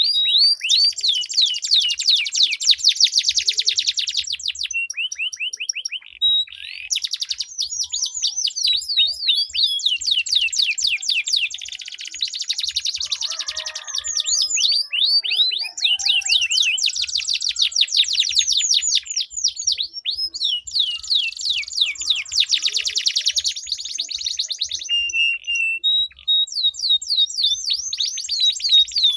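Domestic canaries singing long rolling trills: fast runs of rapidly repeated, sweeping high notes, with brief breaks about six seconds in and near the end.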